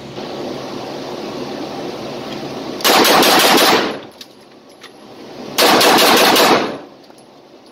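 Two rapid strings of 9mm pistol shots, each about a second long, the second starting about two and a half seconds after the first, echoing off the concrete walls of an indoor range.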